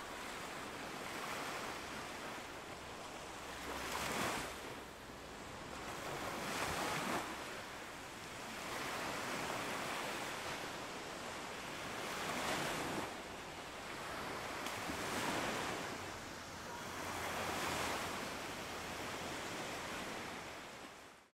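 Ocean waves and surf: a steady wash of water noise that swells and fades every few seconds.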